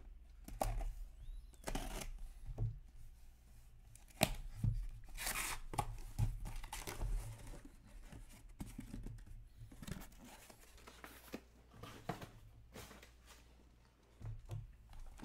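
Packing tape on a sealed cardboard shipping case being slit and torn open, with cardboard flaps scraping and rustling and a few sharp knocks as the boxes inside are handled.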